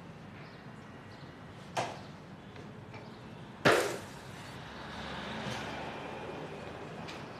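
A light knock, then about two seconds later a much louder, sharp impact, followed by a steady rushing background noise.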